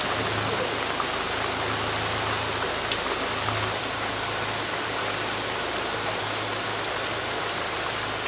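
Heavy tropical rain pouring onto the sea, a steady hiss with scattered ticks of single drops and a low hum underneath.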